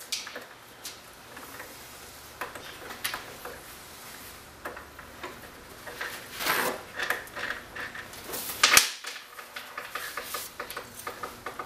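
Scattered metal clicks and clinks of a VW 002 transaxle's gear carrier and shift-fork parts being handled on a workbench, with a couple of rustles and one sharp, loud click about nine seconds in. A quick run of ticks starts near the end.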